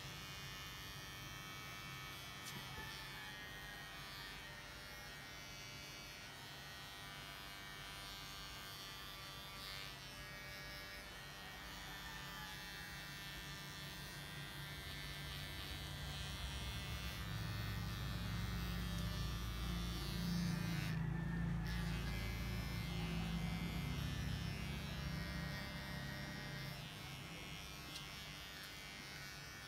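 Electric pet grooming clippers running with a steady buzz, getting louder and deeper for several seconds past the middle.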